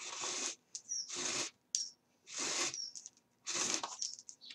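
Thread being pulled through the stitching holes of card pages in four long swishes, each about half a second, roughly one a second, with faint high squeaks between pulls.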